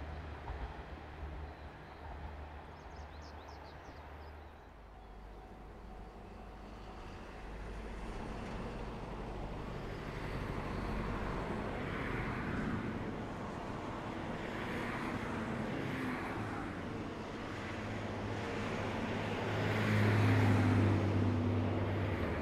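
KiHa 40/48-series diesel railcar approaching along the line. Its engine rumble grows steadily louder and is loudest near the end. A low rumble dies away in the first few seconds.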